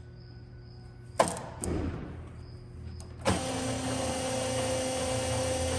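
Two metal clunks from the LeBlond engine lathe's controls, then its drive motor switches on about three seconds in and runs with a steady hum, set up for a new spindle speed.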